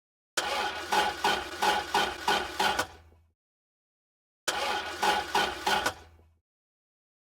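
A car's starter cranking the engine in two attempts, a rhythmic churning of about two beats a second that fades out each time without the engine catching: a failed start.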